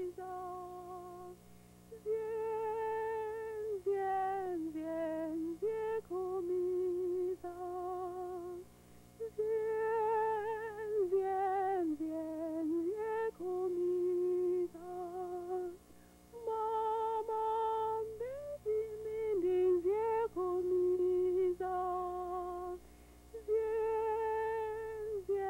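A woman humming a slow tune: held notes with a slight waver, in short phrases separated by brief pauses.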